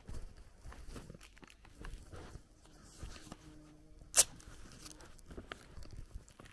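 Rustling and crunching of someone walking through garden grass and brushing vegetation, with one sharp click about four seconds in.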